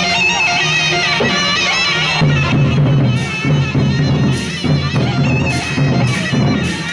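Gendang beleq ensemble playing: a reed pipe carries a wavering, nasal melody, and about two seconds in the big drums and cymbals come in with a steady beat.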